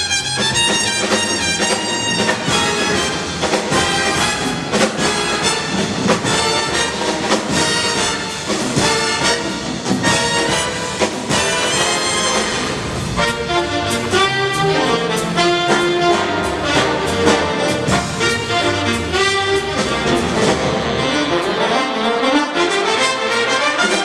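Live big band jazz: trumpets, trombones and saxophones playing ensemble lines over a driving drum kit.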